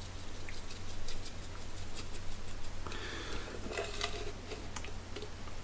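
Coarse salt-and-pepper spice rub shaken from a small glass jar, the granules rattling in the jar and pattering onto raw beef ribs, in light, irregular ticks. About three seconds in there is a denser burst of rattling as the jar is shaken in both hands.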